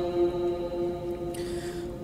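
Pause between verses of a chanted Quran recitation: the reciter's voice dies away in the mosque's echo, leaving a faint steady tone, then a soft breath is drawn near the end just before the chanting resumes.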